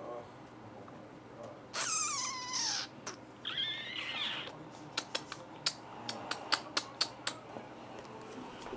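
A cat meows twice: a first call that falls in pitch, then a shorter, higher call about a second later. After that comes a quick, irregular run of sharp clicks and taps.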